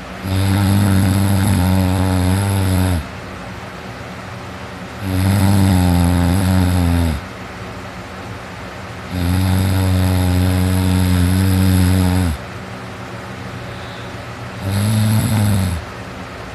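A person snoring heavily while asleep on his back: four loud, low-pitched snores of two to three seconds each, the last one shorter, with a steady hiss between them.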